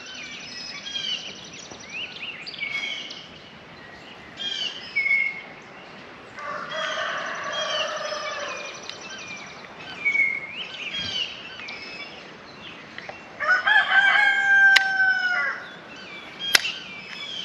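Rooster crowing twice, a long crow about six seconds in and another near the end, with short high bird chirps in between. Two sharp clicks near the end.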